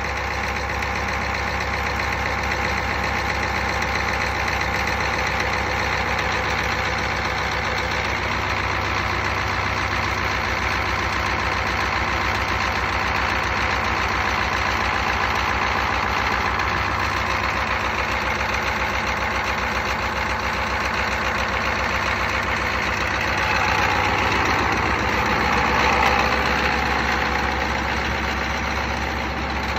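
Engine idling steadily, with a brief rise in level about three-quarters of the way through.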